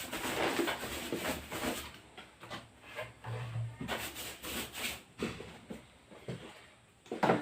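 Intermittent rubbing and scraping noises with scattered small knocks, ending in one sharp knock.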